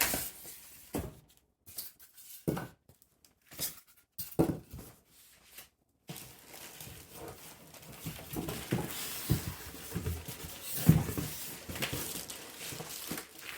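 Packaging of an Elgato Green Screen being handled: scattered knocks and rustles of the box, then from about six seconds in a continuous rustling with frequent knocks and bumps.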